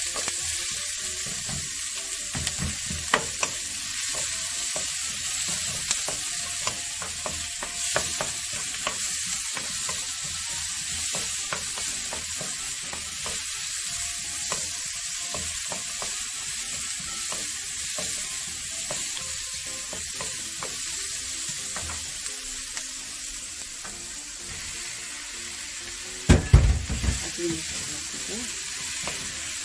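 Sliced onions and garlic sizzling in hot oil in a nonstick frying pan, with a steady hiss, stirred with a wooden spatula that clicks and scrapes against the pan. A short burst of loud knocks comes near the end.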